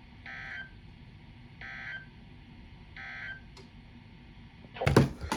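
NOAA Weather Radio SAME end-of-message signal: three short bursts of warbling digital data tones about 1.3 s apart, marking the end of the severe thunderstorm warning. Near the end a loud thump and clatter breaks in.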